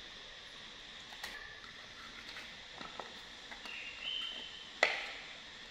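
Quiet room with a few light taps and one sharper knock near the end. About four seconds in there is a short, high squeaky call that rises in two steps.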